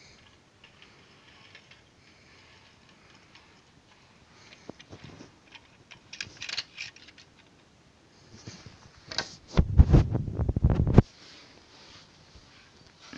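Model train rattling on its track: scattered faint clicks, then a loud burst of rapid clattering knocks lasting about a second and a half near the end.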